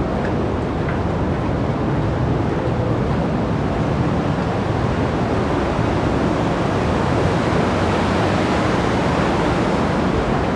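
Steady rush of the Partnach mountain stream and its waterfalls pouring through a narrow rock gorge.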